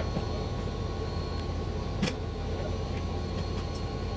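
Box truck's engine running steadily, with one sharp knock about halfway through.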